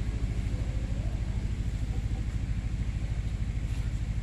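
Diesel engine idling close by, a steady, fast low throb.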